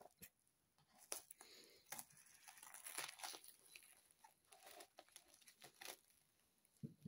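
Clear plastic wrap crinkling and tearing as it is pulled off a small cardboard package, and scissors cutting through it: irregular faint crackles with sharp snaps.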